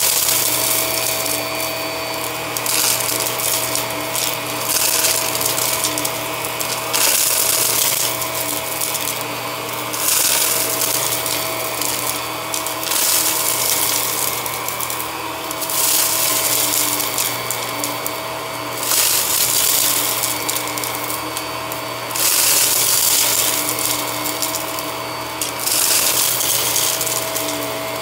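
Hart upright vacuum running, a steady motor hum and whine, getting louder every few seconds as it is pushed forward over small debris on carpet, with the crackle of bits being sucked up the nozzle.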